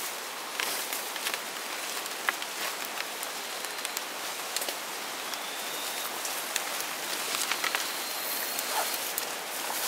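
Footsteps crunching through leaf litter and brushing through dense jungle undergrowth, with scattered crackles and twig snaps, over a steady hiss. A faint thin high tone is heard for a few seconds around the middle.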